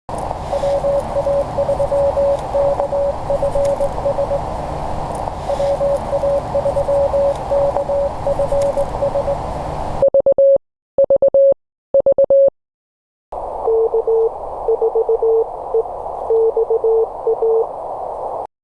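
Morse code (CW) tones keyed in dots and dashes on an amateur radio over steady band hiss. A little after ten seconds comes a short run of louder, clean Morse tone with no hiss, then a brief silence. After that a second Morse signal, slightly lower in pitch, comes back in over the hiss.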